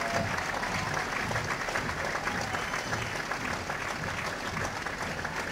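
Crowd of spectators clapping and applauding steadily.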